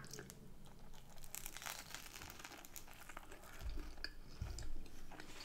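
Faint crackling and tearing as a crisp Yorkshire pudding is pulled apart by hand over a plate. Two soft low thumps come about three and a half and four and a half seconds in.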